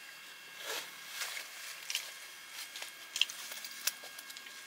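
Faint eating sounds at a table: a few short, sharp clicks and soft rustles, the sharpest two coming after about three seconds.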